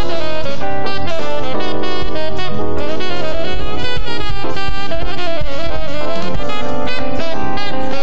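Saxophone playing a solo line over a live jazz band, with drum kit and bass underneath.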